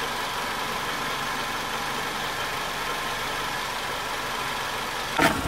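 Engine idling steadily in the background, an even running noise. A sharp click comes near the end.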